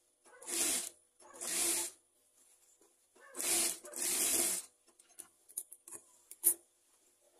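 Industrial lockstitch sewing machine stitching in four short runs of under a second each, in two close pairs. Near the end come a few light clicks and one sharper snip, scissors cutting the thread.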